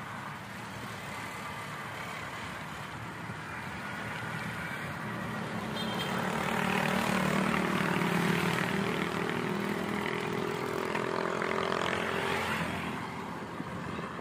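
A motorcycle engine passing close by, growing louder about six seconds in and fading out after about twelve, over steady wind and road noise from riding a bicycle.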